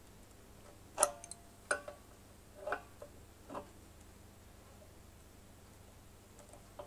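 A metal spanner clicking against a brass fitting on an air compressor tank as the fitting is checked and tightened: four short metallic clicks in about three seconds, the first the loudest, then a faint one near the end.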